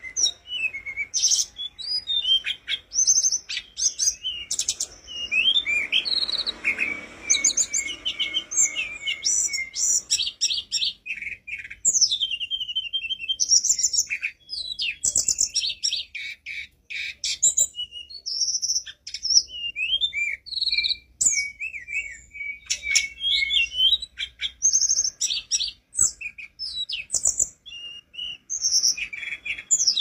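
Caged tledekan gunung, a blue flycatcher, singing a fast, varied song of whistled notes, trills and pitch slides in quick phrases, with a longer held whistle twice.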